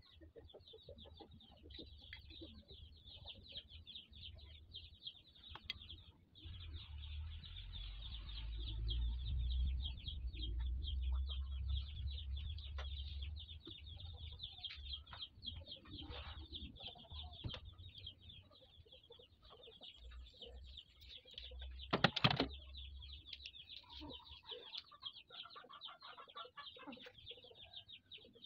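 Chickens in the background: a continuous chorus of rapid high peeping and chirping, with a loud short call about 22 seconds in. A low rumble swells under it from about six to fourteen seconds in.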